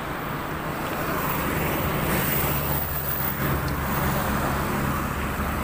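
Road traffic noise, with a motor vehicle's engine hum coming in about a second and a half in and holding steady for a few seconds as it passes.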